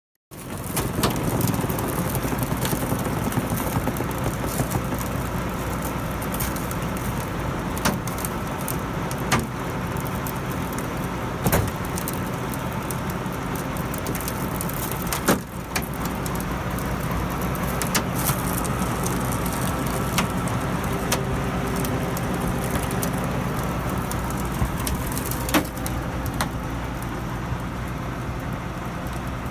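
A motor vehicle or machine engine running steadily, with a few sharp clicks or knocks now and then.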